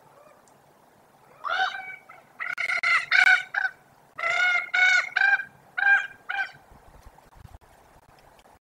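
Common ravens calling: about a dozen short, honking calls in two quick bouts.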